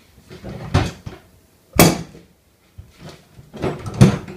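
Clamps being handled: a few sharp knocks and clunks against wood, the loudest about two seconds in and another cluster near the end.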